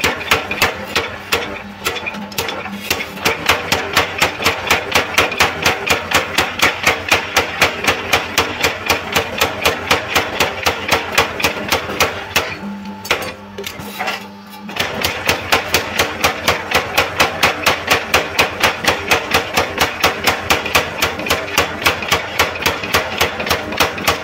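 Electric power hammer forging red-hot bearing steel, its ram hammering the bar on the anvil in a fast, even rhythm of about five blows a second. The blows stop for about two seconds past the middle, leaving a low steady hum, then resume.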